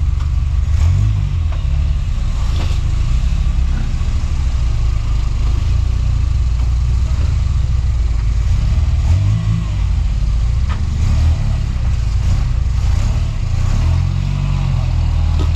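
Toyota Land Cruiser rock crawler's engine running low and steady as it crawls over boulders, revving up briefly three times: about a second in, midway and near the end.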